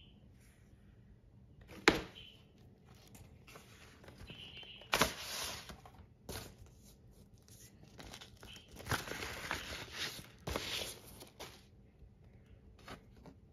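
Paper and cardboard being handled: a single sharp knock about two seconds in, then bursts of rustling and sliding as a paper inner sleeve is handled and a black vinyl LP is drawn out of it.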